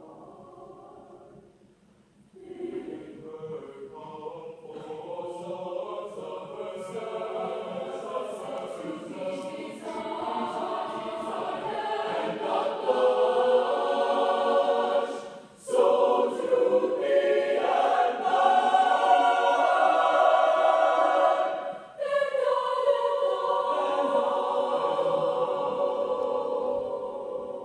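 Mixed high-school madrigal choir singing sustained chords in harmony. The voices come in softly about two seconds in and swell to full, loud chords, with two brief cut-offs, then ease off near the end.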